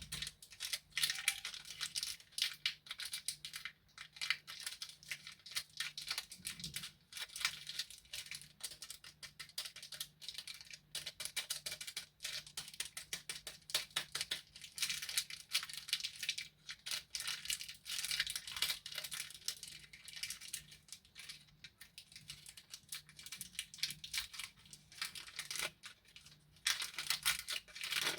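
Close-up crinkling and rustling of plastic candy wrappers being handled and opened, a dense run of crisp crackles and clicks with a few short pauses.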